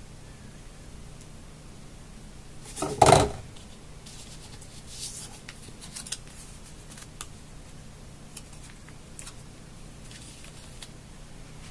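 Desk handling sounds: a short knock about three seconds in, then faint rustling and light clicks as a paper backing sheet of round NFC sticker tags is handled.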